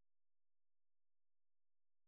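Near silence: no soundtrack.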